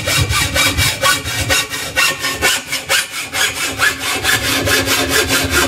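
A saw cutting through a metal pole tube in rapid, even strokes, steady for the whole stretch.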